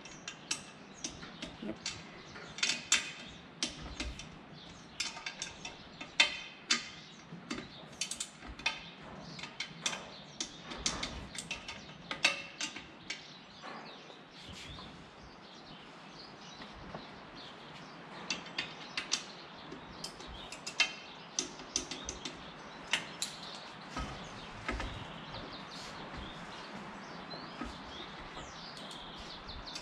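Scattered sharp metallic clicks and clinks of a socket wrench and torque wrench on propeller hub bolts, as the bolts are re-checked for torque.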